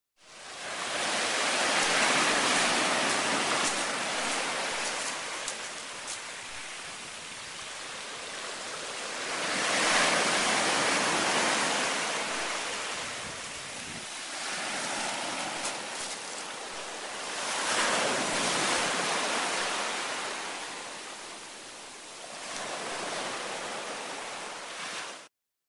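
Ocean surf breaking and washing up on a pebble beach. The rush swells and fades four times as successive waves come in.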